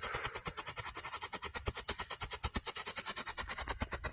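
Silver strobe firework popping in a fast, even stream, about eight sharp pops a second.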